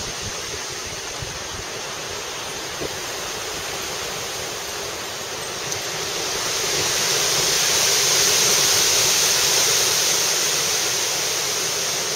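Strong thunderstorm wind gusting through trees, a steady rushing that swells about six seconds in, peaks, then eases a little: the storm's gust front arriving.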